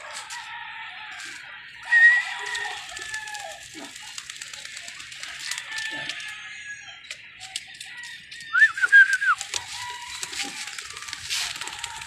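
Roosters crowing: a short call about two seconds in and a louder, broken crow about nine seconds in.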